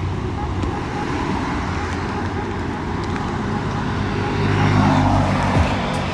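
BMW R nineT's boxer twin running through a cheap local aftermarket exhaust, with the note swelling into a rev about three-quarters of the way through.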